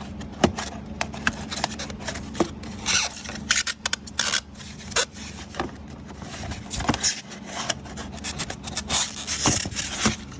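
Foam padding and plastic air ducts being worked loose and pulled out from under a car's front seat: irregular scraping and rubbing with many small plastic clicks and snaps.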